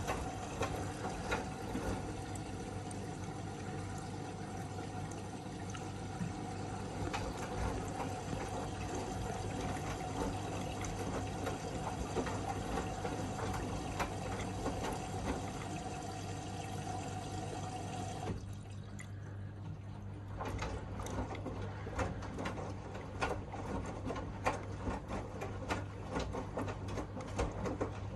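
Miele W1 front-loading washing machine running, with water rushing in over a steady hum and a held tone. The tone cuts off about eighteen seconds in. After that come quick irregular clicks and knocks over the hum.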